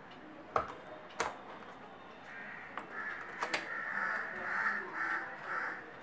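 Cardboard packaging being handled and opened, with sharp clicks about half a second and a second in and another in the middle. Crows are cawing in the background through the second half.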